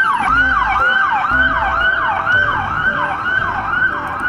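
Toy police car's electronic siren wailing in a fast repeating falling sweep, about three sweeps a second.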